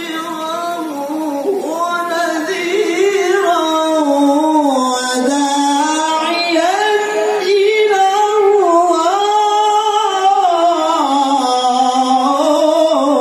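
A qari's Qur'an recitation (tilawah) sung in a high, ornamented male voice through a microphone, in long melismatic phrases whose pitch winds up and down.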